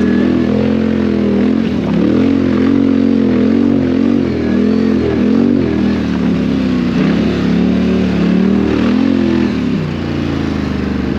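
Quad bike (ATV) engine running close up under varying throttle, its pitch rising and falling again and again, with deeper dips about two seconds in and near the end.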